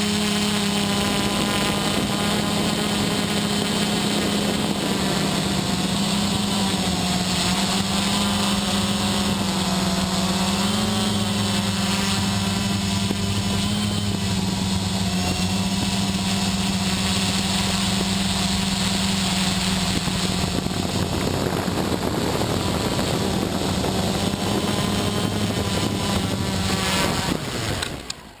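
XP2 quadcopter's electric motors and propellers whirring steadily in flight, pitch wavering slightly as the craft manoeuvres; near the end the whir dies away quickly as the quad sets down on the grass.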